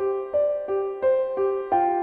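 Background music: a piano playing a simple melody of single notes at an even pace, about three notes a second, each ringing and fading before the next.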